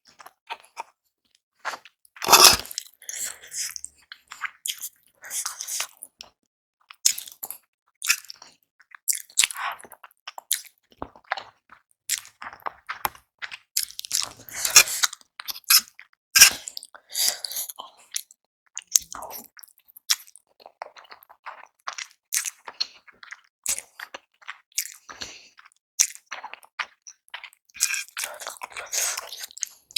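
Close-miked eating sounds of hot and spicy Korean instant noodles and boiled eggs: irregular bites and chewing, with one loud sharp burst about two seconds in.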